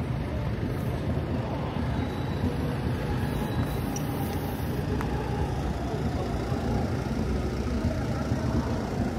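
Steady urban outdoor ambience: a low, even rumble of road traffic and idling vehicle engines.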